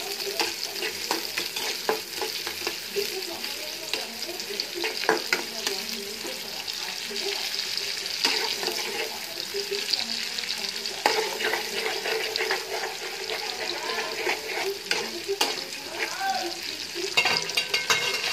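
Sliced onions sizzling in plenty of hot oil in a karahi, a steady hiss, with a spatula scraping and clicking against the pan as they are stirred. A burst of louder scrapes comes near the end.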